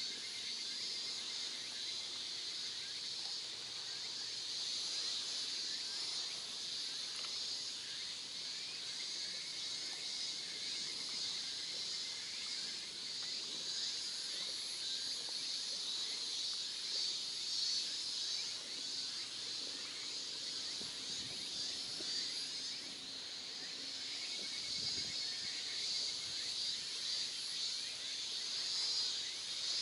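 A steady, high-pitched insect chorus shrilling without a break.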